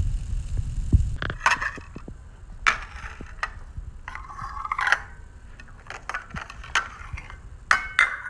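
Irregular scraping, crunching and clattering of objects being handled, with a low rumble that stops about a second in.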